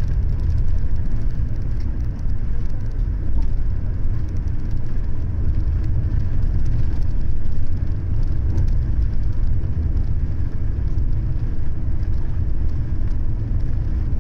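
Highway coach driving through city streets, heard from inside the passenger cabin: a steady low rumble of engine and road noise.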